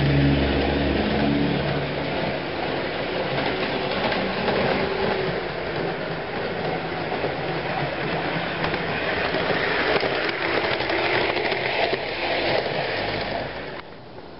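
Model diesel switcher locomotive running on sectional track, its motor and wheels making a steady rattle with freight cars clattering along behind. The sound drops off sharply near the end.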